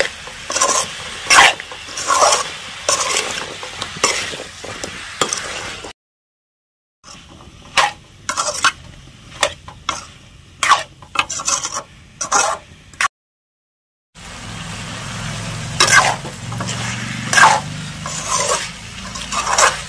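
Metal spatula scraping and clinking against a metal kadai as spiced pumpkin pieces are stirred, over a steady sizzle of frying. It is broken twice by brief silences.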